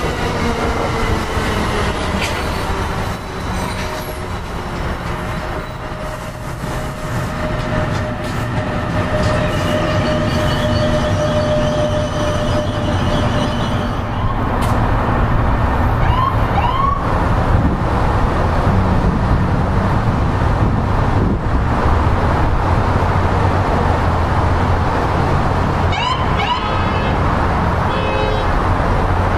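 NJ Transit electric train with multilevel cars passing, its whine falling in pitch over the first several seconds above the rumble of the cars. Then an approaching train led by an NJ Transit electric locomotive, its rumble growing louder, with short squeals about halfway through and near the end.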